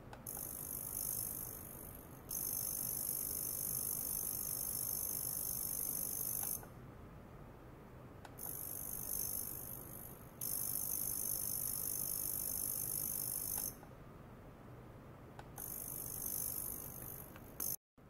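Ultrasonic probes in a water-filled glass jar, driven by a function generator, giving off a shrill, hissing high-pitched sound with several piercing tones. The sound switches on and off abruptly in blocks of two to four seconds as the oscillation is switched, over a steady low electrical hum.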